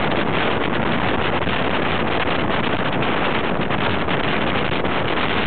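Steady rush of wind across the microphone held out of a moving train's window at speed, mixed with the train's running noise on the rails.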